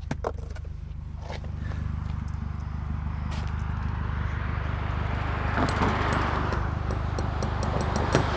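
A vehicle passing on the road: its noise swells to a peak about six seconds in and fades, over a steady low engine hum. A few sharp clicks and clinks come near the start and again near the end.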